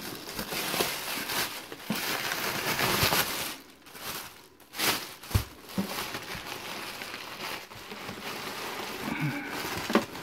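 Plastic carrier bags and crumpled newspaper packing rustling and crinkling as they are handled and pulled out of a cardboard box, with a brief lull about four seconds in.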